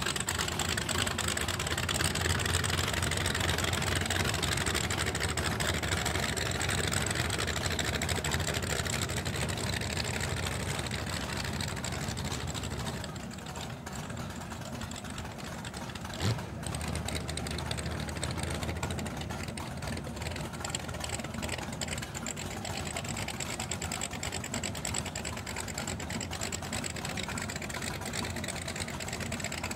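Offshore race boat's engine running steadily at low speed, an even mechanical rattle as the boat motors away. About sixteen seconds in there is one short sharp click.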